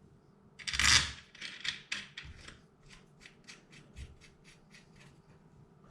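The air rifle's buttstock is fitted back on with one loud scraping slide, followed by a quick run of light clicks, about five a second, that fades out.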